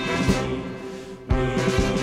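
Background music with sustained notes and a steady drum beat; it dips about halfway through the first second, then comes back suddenly on a strong beat.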